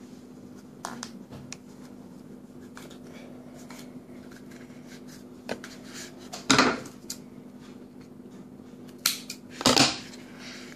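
Duct tape wallet being handled and folded: small crinkles and clicks of the tape, with two louder harsh rustles, one past the middle and one near the end.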